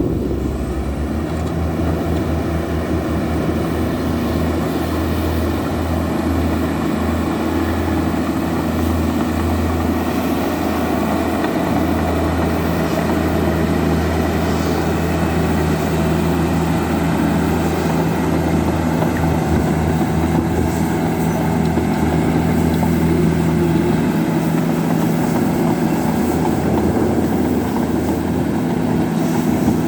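Heavy construction machine's diesel engine running steadily with a constant low hum.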